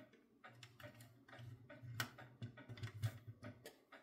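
Faint, irregular clicks and scrapes of a small screwdriver turning a screw terminal on a switching power supply while wire leads are fastened in.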